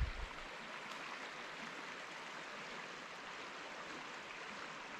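Sipsey Fork river flowing: a steady, even rush of moving water.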